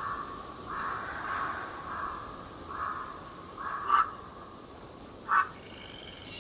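A bird giving a run of harsh, rough calls about two a second, then two louder single calls. Faint steady hiss of the forest underneath.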